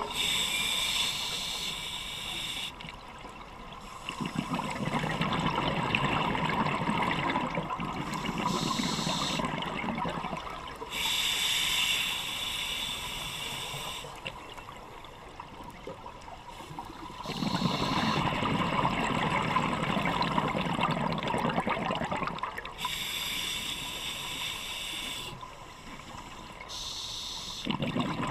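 Scuba diver breathing through a regulator underwater: a hissing inhale, then a longer burst of rumbling exhaled bubbles, repeating in a slow cycle about every eleven seconds.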